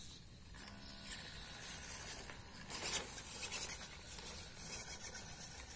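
MN99S RC crawler truck driving over a muddy dirt trail: a faint steady whine of its small electric motor and gears under a rough scraping of tyres on the ground, with a brief louder scrape about three seconds in.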